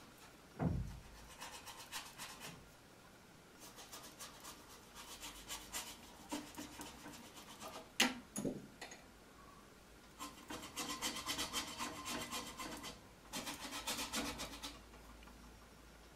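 Paintbrush scrubbing on stretched canvas in several runs of quick, scratchy strokes. A low thump comes about half a second in and a sharp knock about eight seconds in.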